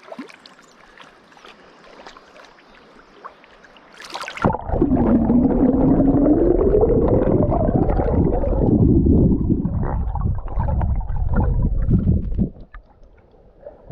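Quiet river current, then a splash about four seconds in as a GoPro camera is plunged underwater in a swift river. For about eight seconds the current rushes loud and muffled, heard from under the water, with a wavering tone that rises and falls. It cuts back to the quiet surface sound near the end.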